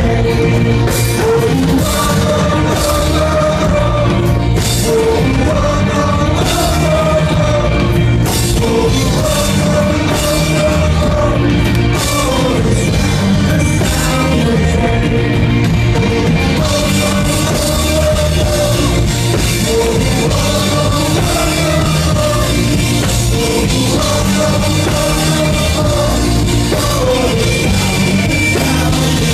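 Live rock band playing, with drums, bass and a melodic voice or instrument line over them, loud and steady throughout.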